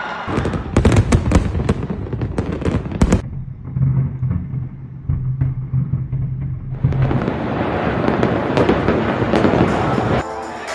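New Year fireworks display: a rapid series of sharp bangs, then after a quieter stretch a dense crackling from about seven seconds in.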